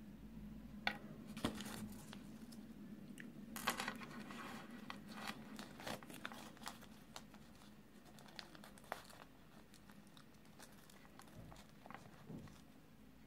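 Foil wrapper of a Kinder Surprise egg crinkling, along with small plastic toy pieces clicking on a table. The sounds come in scattered short bursts, busiest a few seconds in.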